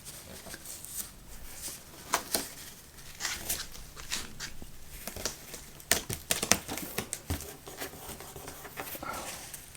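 Cardboard panels being handled and fitted together: scattered light taps, knocks and short scrapes of card against card.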